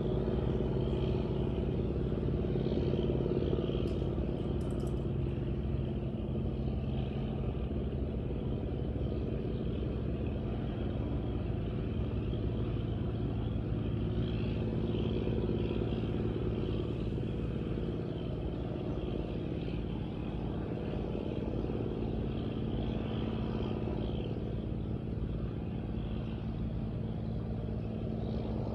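Diesel engines of squid-fishing boats running under way, a steady low drone at a fixed pitch that eases slightly toward the end.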